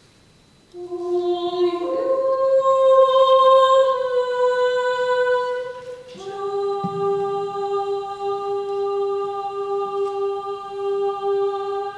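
Voices of a small vocal ensemble singing long, steady held notes, starting a moment in after a near-quiet pause. The held pitch steps up about two seconds in, is loudest soon after, and moves to a new held note about six seconds in.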